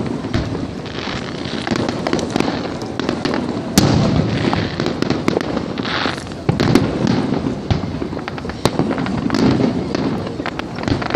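Aerial fireworks bursting in quick succession: a steady run of bangs and crackles, with sharper reports about four seconds in and again near the middle.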